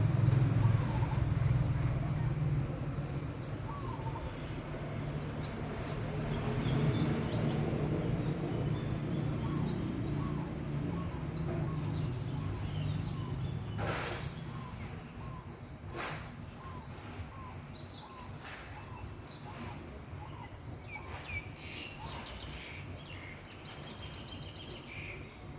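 City ambience: a steady low rumble of traffic, louder in the first half and easing off, with small birds chirping repeatedly over it and a few sharp clicks.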